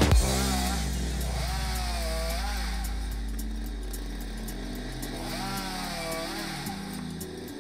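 Stihl chainsaw mounted in a homemade cut-off stand, running steadily and twice speeding up to cut through a board, its pitch rising and falling with each cut.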